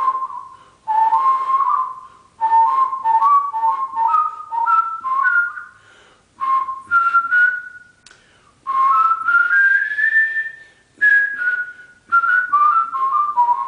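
Human lip whistling, warbling: the tone flicks rapidly back and forth between two notes with sharp breaks as the tongue touches the inside of the lower lip, trapping air and jumping to the higher note. It comes in several short phrases that climb in pitch and then step back down.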